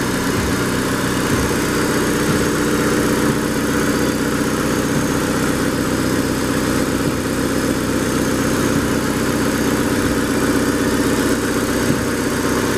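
Hyundai Accent's 1.3-litre G4EA SOHC 12-valve four-cylinder petrol engine idling steadily.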